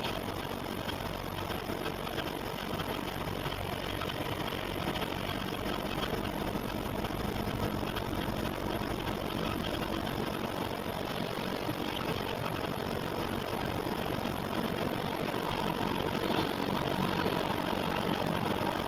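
A running engine's steady mechanical noise with no clear rhythm or pauses, getting slightly louder near the end. It is recorded as an abnormal noise.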